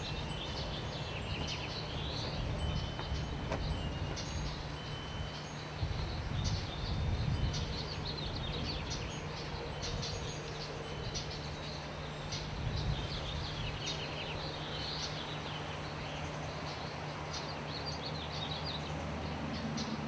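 Small birds chirping and twittering in quick high notes, over a steady low hum. A wind chime rings with a few held tones in the first few seconds.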